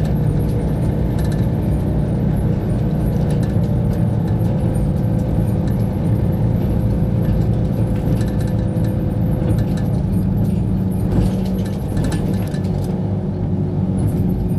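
Volvo 8700 coach's diesel engine idling steadily, heard from inside the passenger cabin as a low rumble with a steady hum, with faint clicks and rattles.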